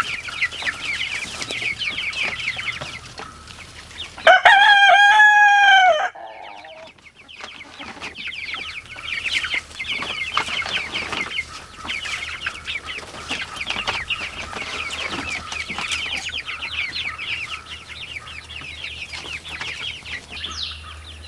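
A flock of six-week-old chicks cheeping steadily: many quick, high peeps. About four seconds in comes one loud, drawn-out crow lasting nearly two seconds.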